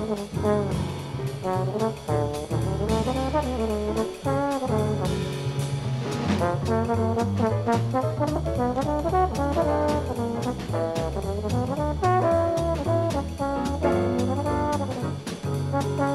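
A small jazz combo recorded in 1964, with brass horns (trumpet and trombone) playing lines together over drums and a steady low accompaniment.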